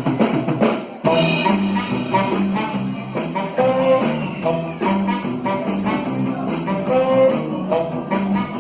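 Live band playing a song's instrumental intro: a guitar melody over bass and a drum kit keeping a steady beat. The full band comes in about a second in.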